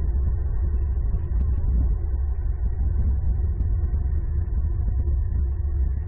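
Steady low rumble picked up by an outdoor nest camera's microphone, with a few faint ticks.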